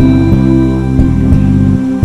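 Background music: slow ambient score of held, sustained tones, with the low notes changing several times.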